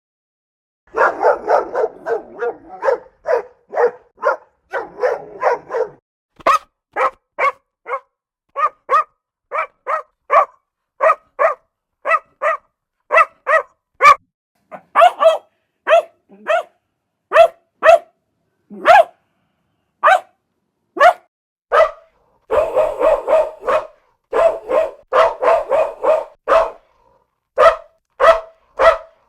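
Dogs barking: a quick run of barks, then single barks about one every half second to second, then another fast flurry, then spaced barks again.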